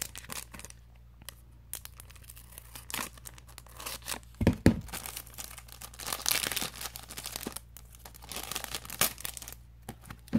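Thin clear plastic wrapping around a stack of cards being torn open and handled, with irregular crinkling and crackling. A low thump comes about four and a half seconds in.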